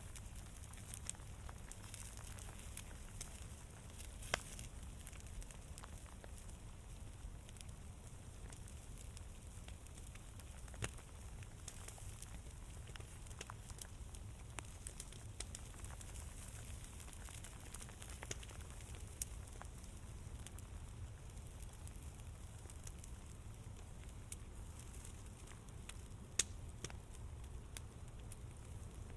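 A fire crackling, with irregular sharp pops scattered through it, a few louder ones standing out, over a steady low rumble and faint hiss.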